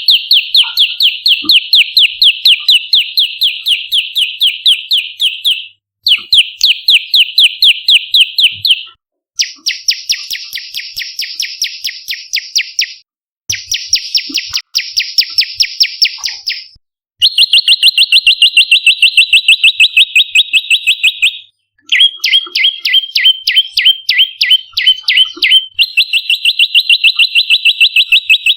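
Prenjak lumut calling in long, rapid, chattering trills. The notes come evenly, several a second, in phrases of three to five seconds split by short pauses, and a few phrases are higher and buzzier than the rest.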